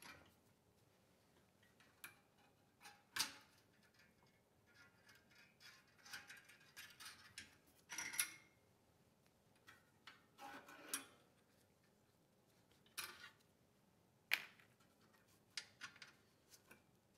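Faint, sparse clicks and light metal clinks as a carburetor and its throttle linkage rods are worked off a Subaru EX30 engine by hand, with a few sharper clicks spread through.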